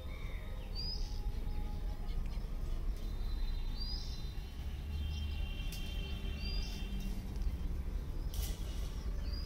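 A bird repeating a short, high call that flicks up and drops, about every three seconds, over a steady low rumble.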